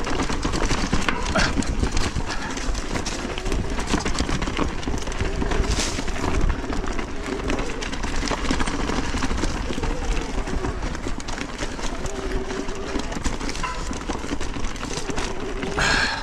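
Specialized Turbo Levo electric mountain bike ridden along a dirt trail: tyres rolling over dirt and roots, with the bike clattering and rattling constantly and wind rumbling on the helmet camera.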